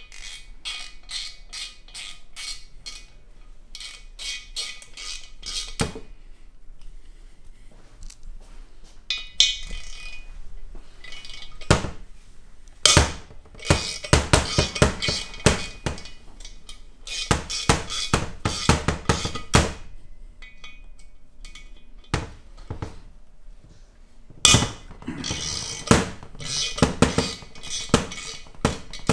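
Metal hand tools and small steel parts clinking and tapping against an aluminium engine cylinder head on a workbench, in irregular clusters of sharp clicks with short pauses between.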